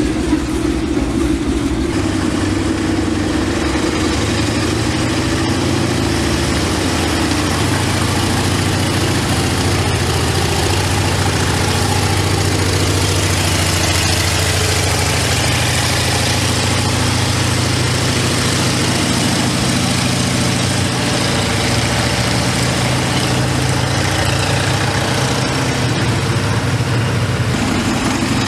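An M3 Grant medium tank's Continental R-975 nine-cylinder radial engine running steadily near idle as the tank drives slowly. Its note shifts about two seconds in.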